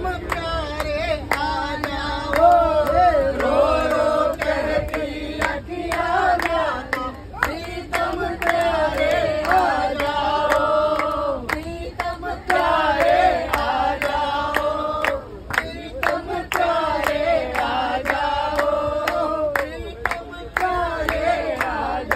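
A Hindi devotional bhajan sung by a man with a group around him, many hands clapping in time to it.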